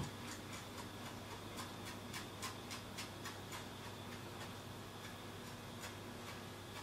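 Chef's knife chopping fresh parsley on a wooden cutting board: light, fairly regular taps of the blade on the board, about three a second, thinning out toward the end.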